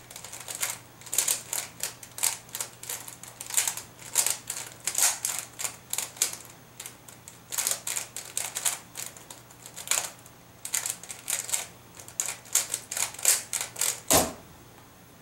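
Square-1 puzzle being turned fast during a speedsolve: irregular runs of sharp plastic clicks and clacks as the layers twist and the middle slice flips, with short pauses between runs. About fourteen seconds in, one louder knock as the solve ends and the timer is stopped.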